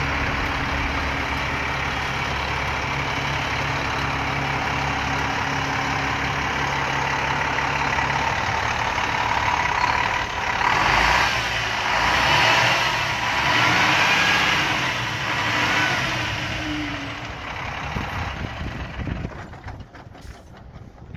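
Diesel engine of a 2007 International 7600 tandem-axle truck idling steadily, then revved up and let back down several times around the middle. The engine sound falls off near the end.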